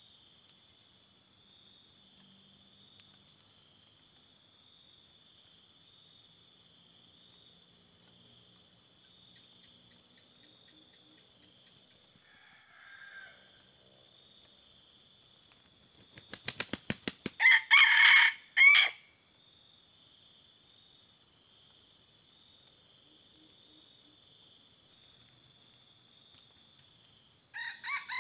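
Decoy junglefowl rooster crowing loudly about two-thirds of the way in, preceded by a rapid run of about eight sharp claps; a shorter, fainter crow comes near the end. A steady high insect buzz runs underneath.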